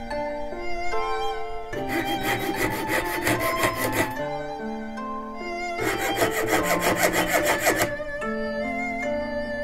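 Jeweler's saw cutting a groove into the rim of a copper tsuba: quick rasping back-and-forth strokes, about six a second, in two runs of roughly two seconds each. Background music with bowed and plucked strings plays throughout.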